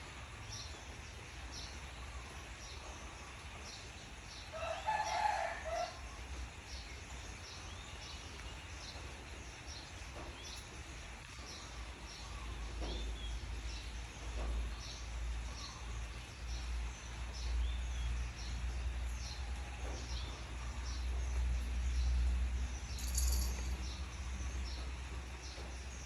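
Small birds chirping repeatedly with short high notes over a low steady rumble, with a louder call of about a second and a half around five seconds in.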